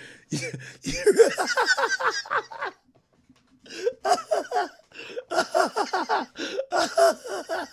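A man laughing hard in quick, choppy bursts, two bouts broken by a short pause about three seconds in.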